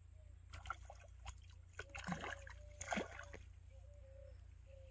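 A hooked fish thrashing and splashing at the water's surface as it is played in on a fishing rod: a run of irregular splashes, the loudest about two and three seconds in.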